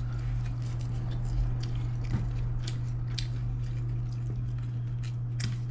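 Eating at a table: scattered small clicks and smacks of chewing and utensils, over a steady low hum.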